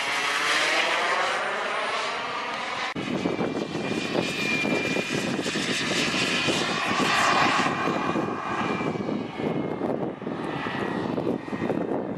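Turbine engine of an RC model sport jet flying overhead: a rushing jet noise with a thin high whine. For the first few seconds it has a swirling, phasing sweep as the jet passes. The sound changes abruptly about three seconds in.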